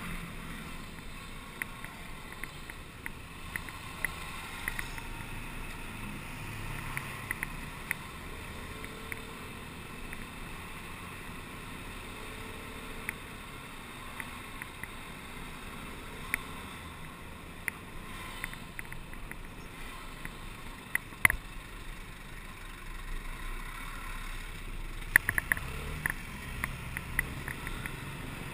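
Road noise while riding in street traffic: steady wind on the microphone and a low traffic rumble, with scattered small clicks, a sharp knock about 21 seconds in and a quick run of clicks near the end.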